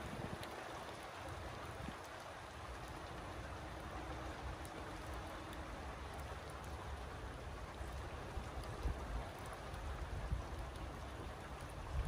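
Steady rain, an even hiss with scattered ticks of drops, and a few low bumps in the second half.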